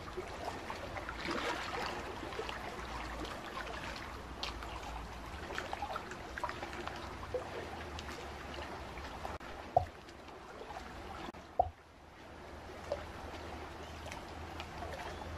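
Pond or stream water ambience: a steady trickle and gurgle of running water with many small faint drips, and two short louder plops about ten and twelve seconds in.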